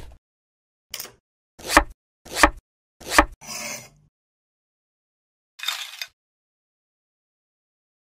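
A plastic toy toilet set down with a thump on a wooden cutting board, followed by four short knocks about two-thirds of a second apart, each swelling quickly and stopping short. A brief hiss follows a couple of seconds later.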